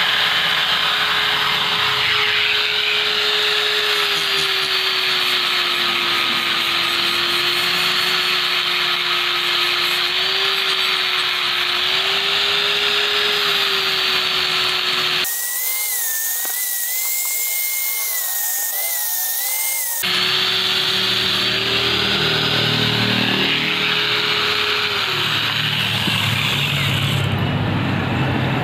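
Handheld angle grinder running steadily while grinding the blade of a brass boat propeller, a motor whine under a harsh grinding noise. About fifteen seconds in the sound cuts abruptly to a thinner, wavering whine for about five seconds, then the grinding resumes, its motor tone sagging near the end.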